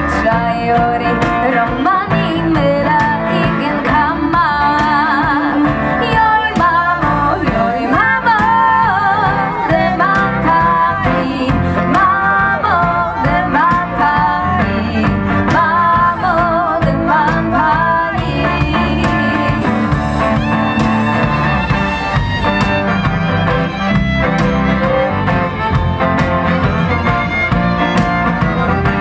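Folk band playing live: a sung melody with fiddle and guitar over a steady bass beat.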